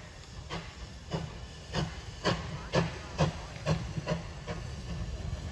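Steam locomotive working along the line, its exhaust chuffing about twice a second over a low rumble. The beats grow louder toward the middle and ease off slightly near the end.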